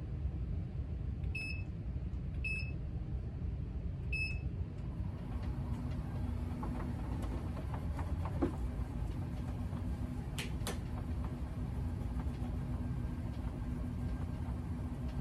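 Access vibration plate beeping three times as it is set with its remote, then its motor starting about five seconds in with a steady hum, over a low rumble.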